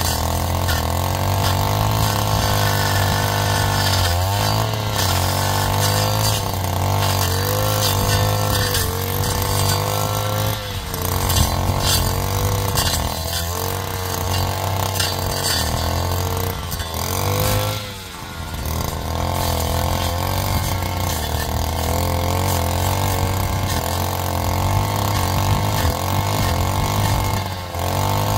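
Vehicle engine running steadily with a strong low hum, its pitch wavering up and down every few seconds, with a brief drop in level about two-thirds of the way through.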